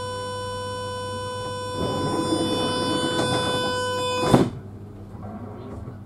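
Door-closing signal of an NMBS MS08 Siemens Desiro ML train: a steady electronic warning tone sounds while the passenger door closes, with a rushing noise from the moving door from about two seconds in. Just past four seconds the tone cuts off as the door shuts with a loud thud.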